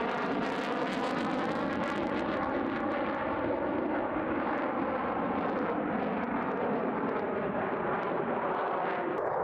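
F-16 fighter jet's engine running steadily, a continuous jet noise with a faint drifting whine.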